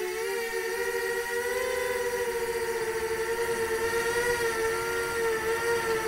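Nazgul 5-inch FPV quadcopter's brushless motors and two-blade propellers whining steadily in flight, two close pitches with a slight waver in speed.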